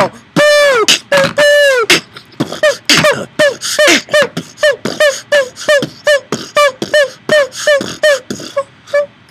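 Beatboxing: a rhythmic run of short sung 'boh' notes on one pitch, each dropping in pitch at its end, with sharp mouth clicks between them. The notes are held longer for the first two seconds, then come quicker, about three a second.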